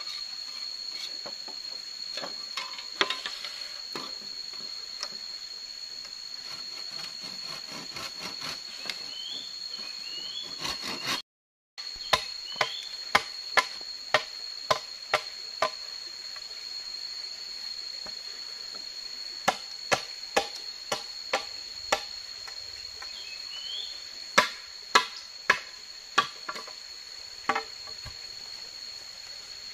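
Runs of sharp blows of a machete on a bamboo pole, a little over one a second, with pauses between the runs. Under them a steady, high insect drone.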